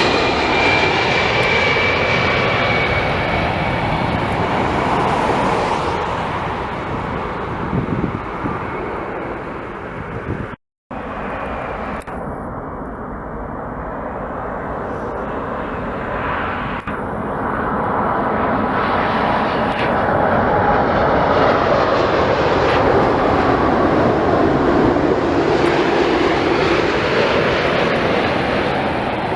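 Jet airliner engines passing, with a high whine that falls in pitch, cut off abruptly about ten seconds in. Another jet's engine noise then builds up, loudest about three-quarters of the way through.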